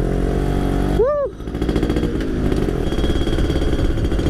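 Yamaha F1ZR's 110 cc single-cylinder two-stroke engine running while the motorcycle is ridden slowly, its pitch rising a little near the middle; the rider says the piston has lost compression again from too little two-stroke oil. About a second in, a short high pitched sound rises and falls.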